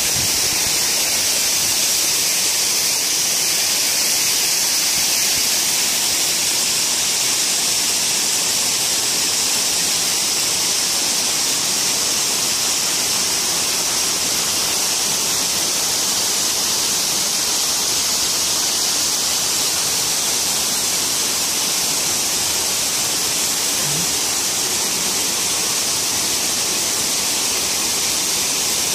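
Running water in a garden cascade, a steady, even rush that does not change.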